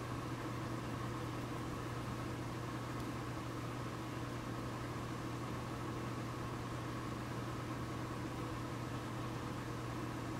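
Steady low hum with an even hiss, unchanging throughout: background room noise with no distinct event.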